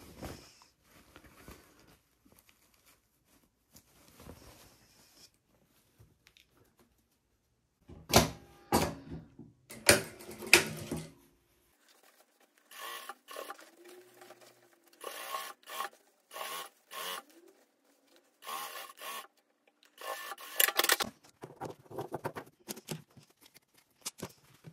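Industrial straight-stitch sewing machine stitching through fabric in several short runs, with cloth rustling as the work is handled between runs. Scissors snip the thread near the end.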